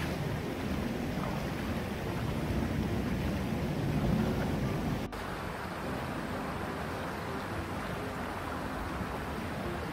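Legs wading through a shallow stream, water splashing around them. About five seconds in the sound changes abruptly to a steadier rush of water spilling over a low concrete weir, with the wading splashes going on.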